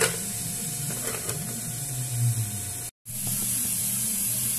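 Aluminium lid set down on a cooking pot with a single clink, followed by a steady low hum and faint hiss as the covered pot cooks.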